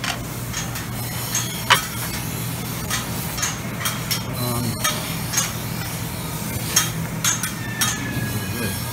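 Buffet restaurant noise: a steady low hum with scattered short clinks and taps of plates and serving utensils, one sharper clink a couple of seconds in.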